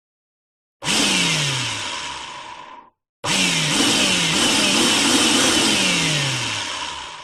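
Power drill running in two bursts, about two seconds and then about four, with a brief stop between them. Its pitch slides down several times as it runs.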